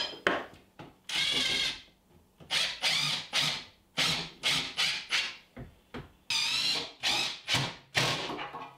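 Cordless drill driving screws in a dozen or so short bursts, each a whine that spins up and stops, with quiet gaps between.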